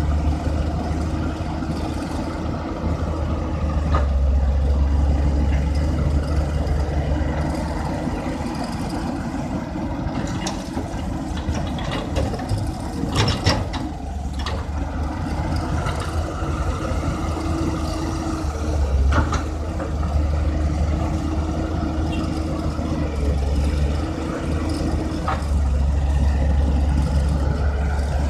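Samsung excavator's diesel engine running while it works, its low hum swelling and easing in stretches, with a cluster of sharp knocks about halfway through and a few single knocks later.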